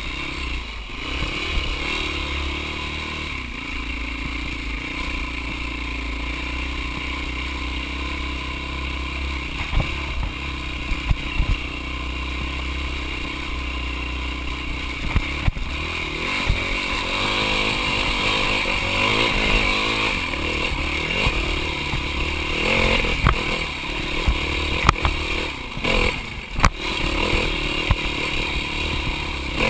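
Dirt bike engine running and revving up and down while riding over rough ground. A few sharp knocks and clatter from the bike over bumps come mostly in the second half.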